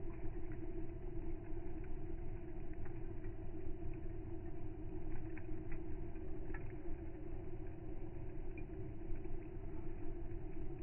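Wood campfire crackling, with scattered small pops over a steady low hum.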